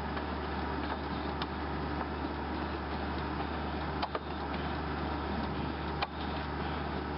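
Steady background rumble with a low hum, like distant road traffic, broken by two short clicks about two seconds apart.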